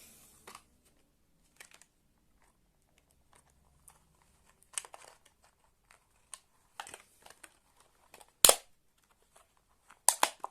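Flashlight packaging being opened by hand: scattered crinkling and peeling of tape and wrapping with quiet gaps between, a single loud sharp crack about eight and a half seconds in, and a burst of tearing near the end.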